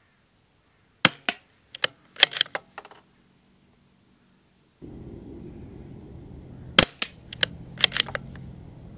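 Two shots from a moderated CZ 457 Royal .22 LR bolt-action rifle firing subsonic rounds, short sharp cracks about a second in and again near seven seconds. Each is followed by a quick run of metallic clicks as the bolt is worked to eject the case and chamber the next round.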